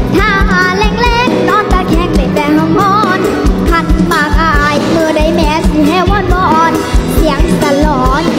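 A young girl singing a Thai song with a wavering, ornamented melody over a live band backing with a steady bass beat.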